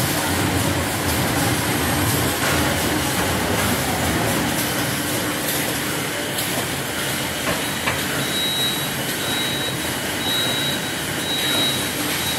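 Tissue production-line machinery running: a steady mechanical clatter from the packing machine and conveyor. From about two-thirds of the way in, a high short beep repeats about once a second.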